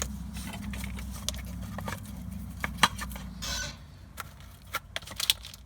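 Scattered small clicks and knocks of a screwdriver and plastic parts as the distributor cap is worked loose, over a steady low hum that fades after about three and a half seconds; a short rustle comes around then.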